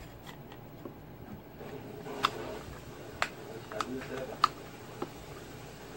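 About five sharp, short clicks and taps a second or so apart, from a small power supply and its plug being handled and connected.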